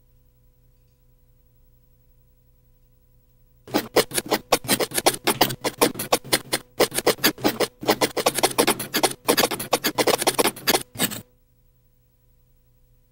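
Rapid, dry scratching and clicking of a crustacean's legs and claws scrabbling over a wooden board. It starts a few seconds in, breaks off briefly a few times, and stops abruptly near the end.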